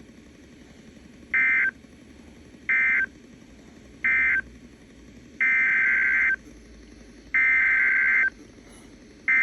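Emergency Alert System SAME digital data bursts from NOAA Weather Radio, short buzzy data tones keyed on and off. There are three short end-of-message bursts closing one alert, then, about five seconds in, three longer header bursts opening the next alert.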